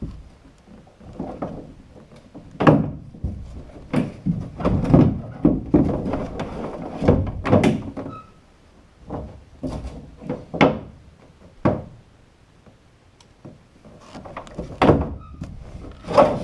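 Irregular knocks and thunks of wood and tools being handled and bumped around the boat's bulkhead, some sharp and loud, others dull.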